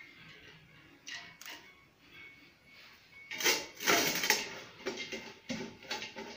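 Steel bowls and a steel pot clattering and scraping as rice is scooped by hand and layered into the pot, with a loud burst of clatter about three and a half seconds in.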